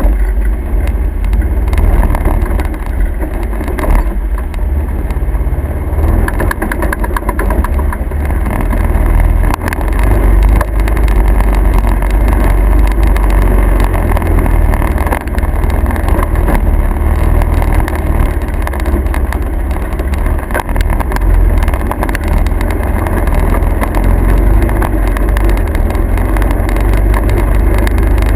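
A motor vehicle running: a loud, steady low rumble with no breaks.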